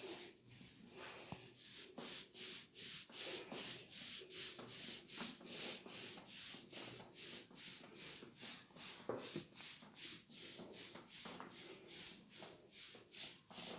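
Fingers rubbing briskly through short hair on a man's scalp during a head massage, making a rhythmic rasping rustle of about two to three strokes a second.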